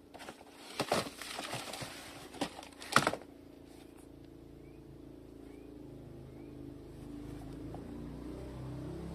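Rustling and handling noises with a few sharp knocks over the first three seconds, the loudest knock about three seconds in. Background music then fades in and gets louder.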